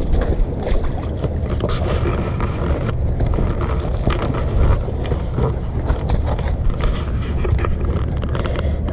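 Wind buffeting the microphone in a steady low rumble, with many short clicks and rustles of handling as algae is stuffed into a fish trap.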